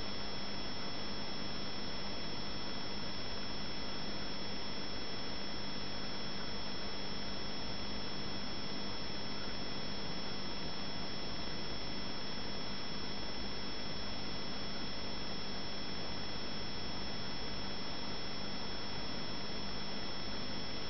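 Aquarium air bubbles and tank equipment: a steady, even hiss of rising bubbles with a constant hum underneath.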